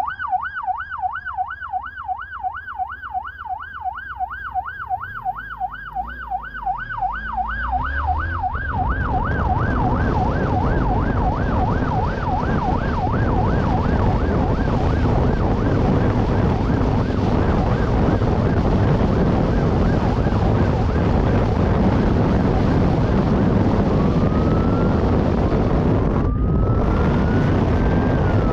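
Police siren on a fast warbling yelp that fades out about eight seconds in. It gives way to a loud, steady rush of wind and road noise from riding at speed. Near the end a siren wails once, rising and then falling.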